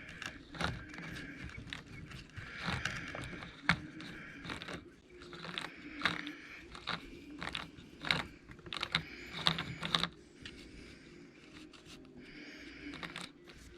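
Small gears and drivetrain parts of a Traxxas E-Revo 2.0 RC truck's exposed differential being turned and handled by hand: irregular light clicks and short gear rattles.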